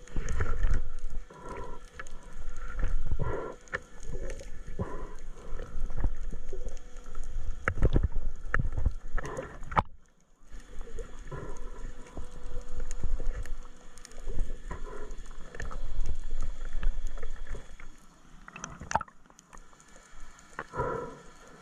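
Underwater sound picked up by a camera in its waterproof housing while a spearfisher dives: water swishing and rumbling against the housing, with scattered clicks and short low tones.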